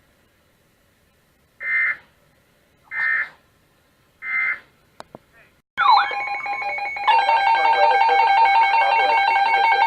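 Three short screeching digital data bursts about a second apart: the EAS/SAME end-of-message code ending a NOAA Weather Radio warning. From about six seconds in, a loud electronic tune with a steady repeating note pattern starts.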